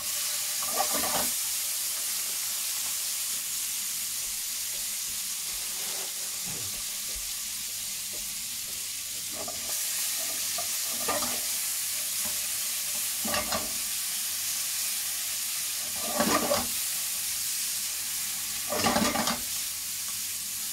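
Prawns sizzling in hot oil in a non-stick frying pan, a steady hiss. Several short scrapes come through as they are stirred around the pan with a silicone spatula.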